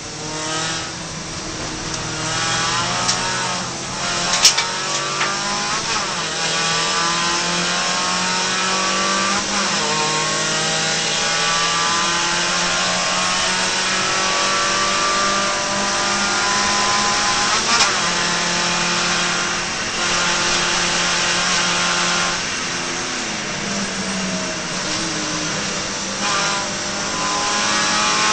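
Suzuki Swift race car's four-cylinder engine heard from inside the cabin, revving hard under full throttle. Its pitch climbs in each gear and drops back at each shift. A single sharp knock comes about four and a half seconds in.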